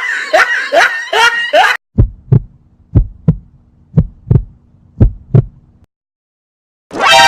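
Heartbeat sound effect: four lub-dub double thumps about a second apart over a faint low hum. It follows the last few bursts of a laughing voice, and a short bright pitched burst starts near the end.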